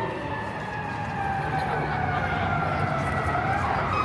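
Emergency vehicle siren wailing, its pitch sliding slowly down and then sweeping back up near the end, over street traffic noise.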